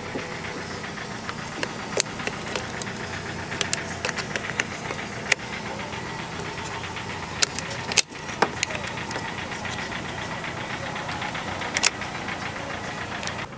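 Ford Zetec engine of a second car idling steadily to supply a jump start, with sharp clicks and clatter of jumper-cable clamps being handled at the battery.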